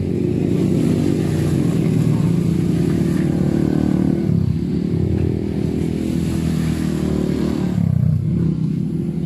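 Dirt bike engine running loud as the bike rides past and climbs a slope, its note changing about four seconds in and again about eight seconds in.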